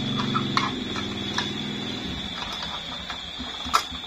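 Small plastic clicks and taps from a toy kitchen's doors being opened and pushed, a few sharp clicks, the loudest near the end. A steady high-pitched tone runs underneath, with a low hum during the first half.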